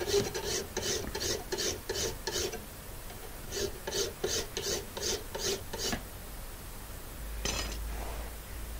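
Hand file rasping along a wrought iron dagger blade clamped in a vise, in quick regular strokes, several a second, with a short break a little over two seconds in and stopping about six seconds in. A brief clatter near the end.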